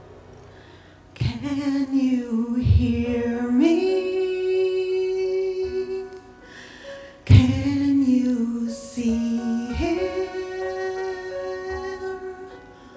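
A woman singing solo into a microphone over a soft instrumental accompaniment: two phrases, each ending on a long held note.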